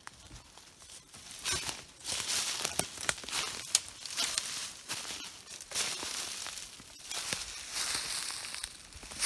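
Irregular rustling and crunching with scattered sharp snaps, from someone moving about in brush.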